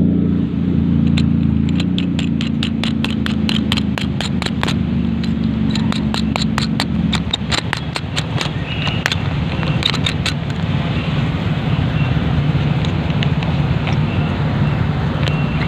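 A small motorcycle engine idling in rain, under a steady hiss. For the first ten seconds or so, rapid sharp taps come several a second, then thin out.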